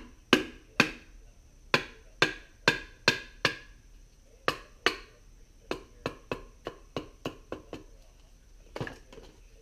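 A wooden baton striking the spine of a knife driven into a red sumac stick, splitting it: about twenty sharp knocks, loud and well spaced through the first half, then lighter, quicker taps, with one last knock near the end.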